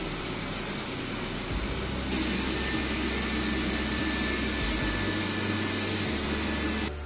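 Narwal T10 robot vacuum running its suction fan: a steady fan noise in normal vacuuming mode, stepping up louder about two seconds in as it runs in turbo vacuuming mode, with a faint high whine, then dropping abruptly just before the end.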